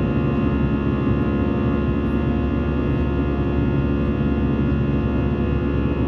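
Airbus A320 engines heard from inside the cabin: a steady, even drone carrying a hum of several held tones.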